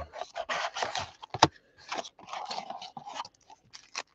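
Cardboard trading-card box being opened by hand and its wrapped card packs slid out: irregular scraping, rustling and crinkling, with a sharp click about a second and a half in.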